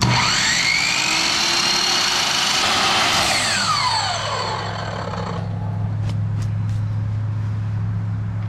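A handheld power cutting tool spins up suddenly and cuts a small piece off a part for about three to four seconds with a dense, high grinding hiss, then winds down with a falling pitch. A steady low hum carries on after it stops.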